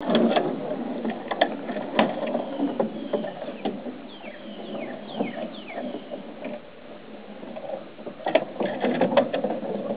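A small child's bicycle with training wheels rolling over a wooden deck, rattling and clattering with many sharp clicks. Four short, high chirps that fall in pitch come near the middle.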